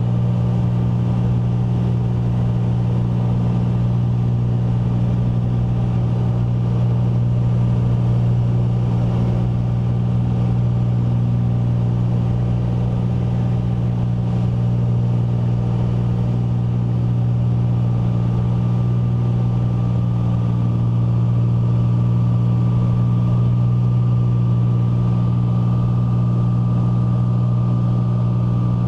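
Single-engine propeller airplane heard from inside the cabin during climb-out: a loud, steady engine-and-propeller drone with a low hum. A faint higher tone grows a little stronger in the second half.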